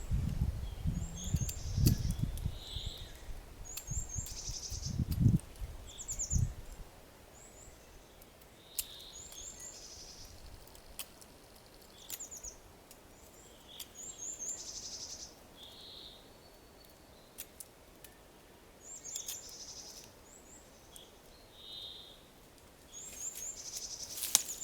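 A songbird singing the same short, high phrase over and over, about every two to three seconds. Low thumps and handling noise fill the first several seconds, and a few sharp knocks come here and there.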